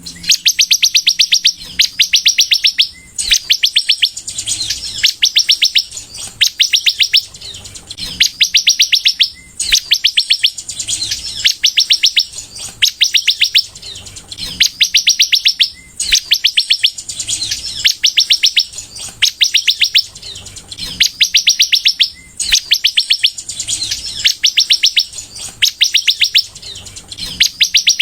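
Sunbird (kolibri) singing in full voice: a fast, high, rattling trill about a second long, repeated over and over with short gaps.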